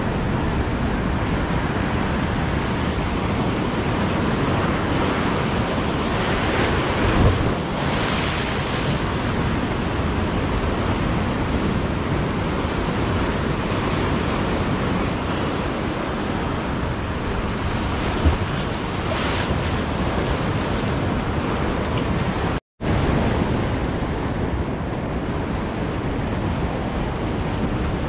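Ocean surf breaking and washing over shoreline rocks in a steady rush, with wind buffeting the microphone. Two brief knocks come about seven and eighteen seconds in, and the sound cuts out for an instant about two-thirds of the way through.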